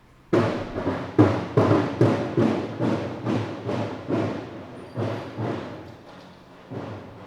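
A Ramadan street drummer beating a large davul drum in a steady beat of about two to three strokes a second, each stroke booming and ringing briefly. The strokes start suddenly and grow fainter near the end. This drumming is the night signal that it is time to eat the pre-dawn meal.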